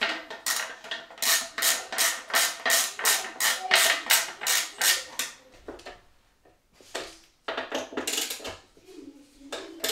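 Ratchet tool clicking in a quick, even run, about four clicks a second for some five seconds, as bolts are undone on a motorcycle bash plate. After a short pause come a few scattered metal knocks and rattles as the plate is handled.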